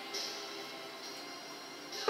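Soft background music in a quiet passage, with no singing.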